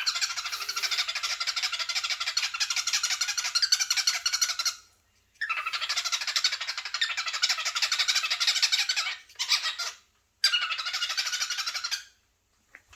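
Cockatiel making a raspy, rapidly pulsing chatter in four bouts, the first two about four seconds long, then a short one and a last of about a second and a half, with brief pauses between.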